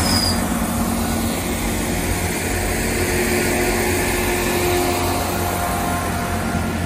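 GWR Class 166 Turbo diesel multiple unit pulling out of the station, its underfloor diesel engines running with a steady drone and a faint held whine.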